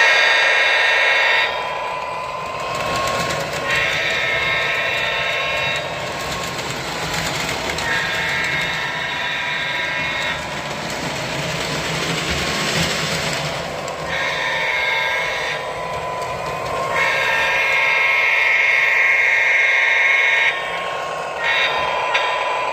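O scale model locomotive's sound system playing a diesel horn in five blasts of one and a half to three and a half seconds each, over a continuous engine rumble.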